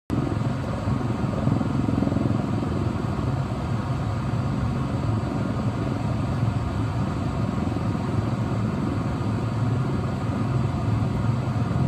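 Helicopter hovering: steady rotor and turbine noise with a low, fast-fluttering throb.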